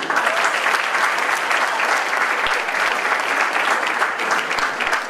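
Audience applauding: many hands clapping together in a dense, steady patter that carries on without a break.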